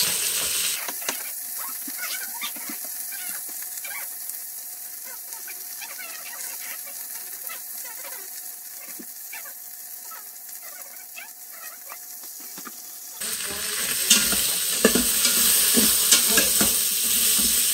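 Vegetables sizzling in the stainless inner pot of an electric pressure cooker on sauté, with light scratching of garlic being grated on a metal hand grater. The sizzle grows louder about three-quarters of the way in as a spatula stirs the vegetables.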